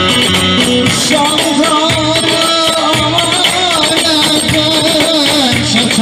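Kütahya regional folk dance music played loud, with a steady beat and, from about a second in, a wavering, ornamented melody line over the accompaniment.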